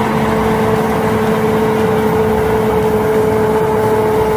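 Crawler bulldozer's diesel engine running steadily as the dozer pushes earth with its blade, with a constant droning note.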